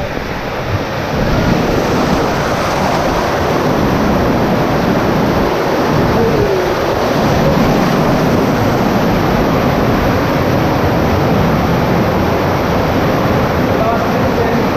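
Rushing, churning water of a water-park rapids channel, a loud steady rush that swells about a second and a half in and then holds.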